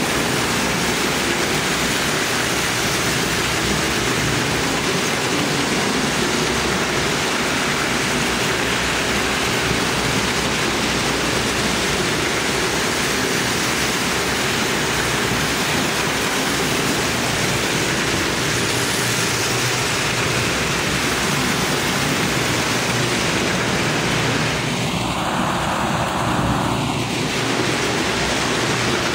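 Several Lionel O-gauge toy trains running on metal three-rail track, their motors and wheels making a steady, even whirring noise. A short, separate sound lasting about two seconds rises and fades near the end.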